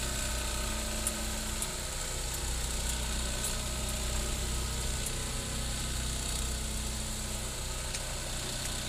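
Steady low engine hum, as of an engine idling, heard from inside a truck cab, with a few faint clicks.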